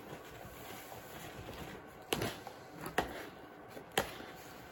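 A spoon knocking sharply against a mixing bowl three times, about a second apart, while crumbly pop-up bait mix is stirred, with faint stirring noise between the knocks.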